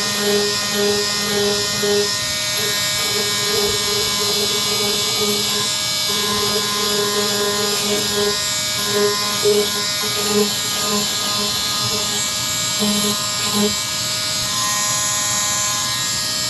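A power sander running steadily against motorcycle bodywork, its lower buzz coming and going as the pad is pressed and lifted, while deep scratches are sanded out.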